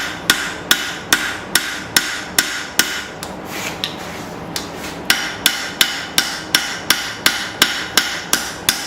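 Hand hammer planishing a forged steel knife blade on an anvil, the finishing stage that smooths and flattens the blade. Evenly spaced light blows about two and a half a second, each with a short metallic ring, with a brief pause a little before the middle.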